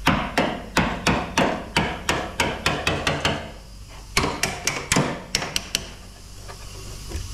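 Hammer blows on the sheet-metal body of a Toyota Land Cruiser 73 during panel repair: a quick run of sharp strikes, about three a second, then a brief pause and a second shorter run of strikes.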